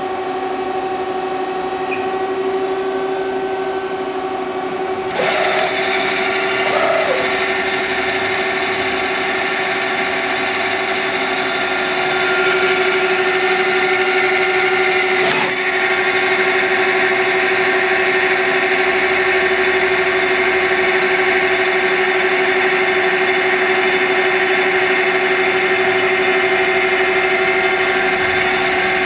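Citizen L20 CNC Swiss-type lathe running a program: a steady machine whine made of several constant tones, with three short bursts of noise about five, seven and fifteen seconds in. It grows louder at about twelve seconds.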